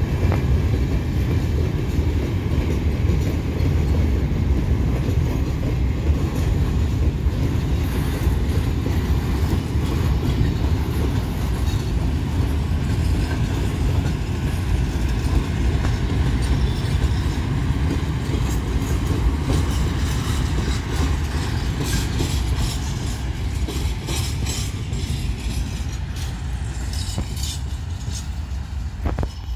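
A long rake of open gondola freight wagons rolling past on the rails as a steady low rumble. From about two-thirds of the way through, a series of sharp clicks from the wheels runs over it.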